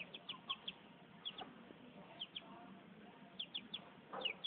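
Six-week-old chick peeping: short, high peeps that slide down in pitch, in little groups of two to four about once a second.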